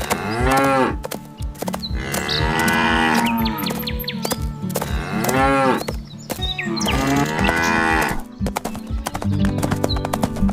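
Cow mooing, about four long moos that each rise and fall in pitch, over background music with a steady rhythmic bass line.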